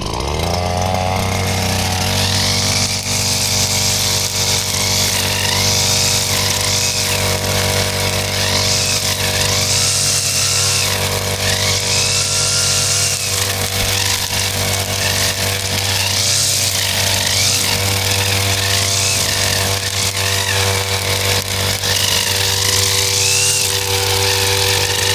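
Petrol brush cutter with a nylon string head, speeding up in the first second and then running steadily at high speed, with a high hiss that swells and fades every second or two as the string works.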